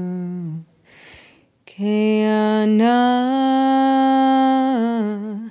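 A woman singing a traditional Dena'ina Athabascan song unaccompanied, in long held notes. One note ends and, after a short breath, a new phrase begins that steps up in pitch and comes back down near the end.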